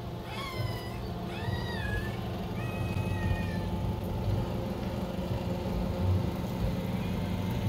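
Three drawn-out animal calls, each rising and then falling in pitch, in the first four seconds, over a steady low hum.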